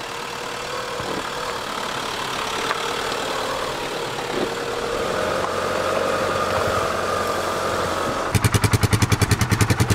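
Fiat Ducato-based motorhome's diesel engine running as it drives slowly over a grassy track, slowly growing louder. Near the end it turns into a close, fast, even diesel clatter of about thirteen beats a second, the engine at idle.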